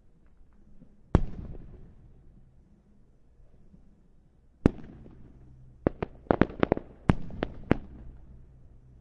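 Fireworks going off: a single sharp bang about a second in and another just past the middle, each trailing off in a long rolling echo, then a rapid run of about ten sharp cracks.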